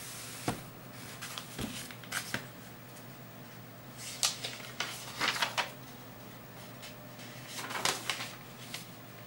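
Paper rustling and light handling knocks as notebook pages are turned over, in several short irregular bursts.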